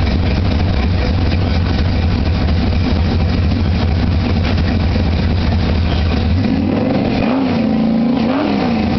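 Car engine running with a steady low rumble at slow cruising speed. About six and a half seconds in the rumble thins and the engine note rises and falls twice, as if briefly revved.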